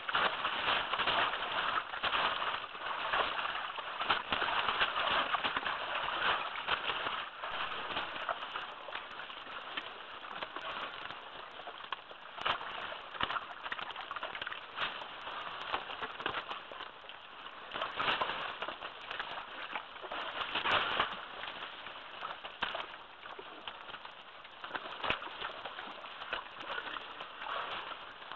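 Wet mud sloshing and squelching as African forest elephants and their calves wade and wallow in a muddy pool, with many short splashes.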